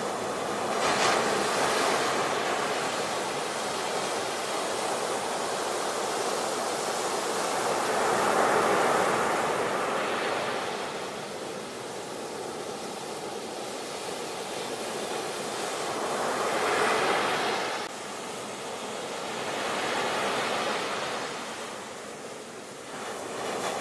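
Ocean surf breaking and washing up a beach, a steady rush of foam and water that swells and ebbs wave by wave, with one surge cutting off abruptly.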